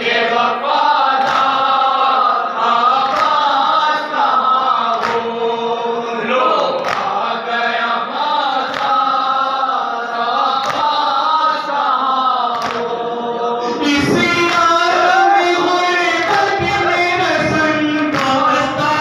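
Men chanting a noha, a Shia mourning lament, together through a microphone and loudspeakers, with hand strikes of chest-beating (matam) landing in time about once a second. The chanting grows fuller about fourteen seconds in.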